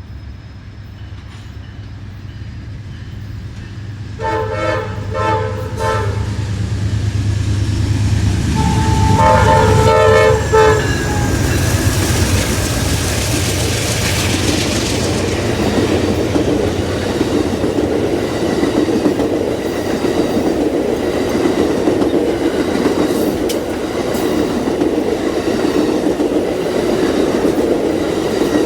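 Passenger train's locomotive horn played as a 'horn show': a string of short chord blasts about four seconds in and another around nine seconds in, over the rising rumble of the approaching diesel locomotive. The train then rolls past with a steady rumble and clickety-clack of wheels on rail joints.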